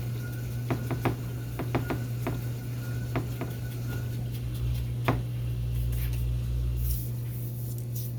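A utensil tapping and scraping against a pan while dry rice is spread out in it, a handful of sharp clicks over the first five seconds, with a steady low hum underneath.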